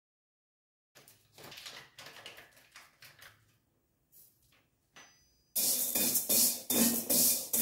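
Faint scattered handling noises, then, about two-thirds of the way in, a spatula starts scraping dry vermicelli round a metal pan in quick repeated strokes as the vermicelli roasts.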